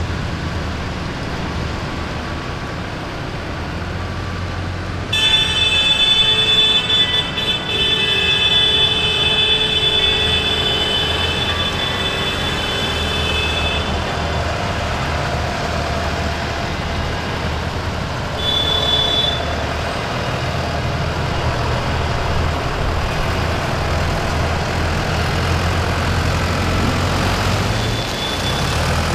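A column of farm tractors passing, their diesel engines running steadily. About five seconds in, a vehicle horn starts and is held for about nine seconds. A second, short blast comes near the middle.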